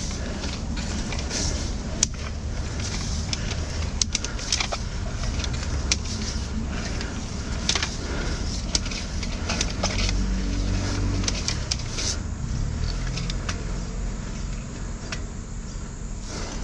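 Drain jetter's engine running steadily, with scattered clicks and knocks of handling over it.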